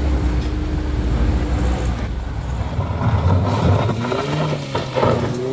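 Engines labouring up a steep dirt climb: first a light box truck's engine running low and steady, then a small hatchback's engine revving, its pitch rising and falling as it climbs.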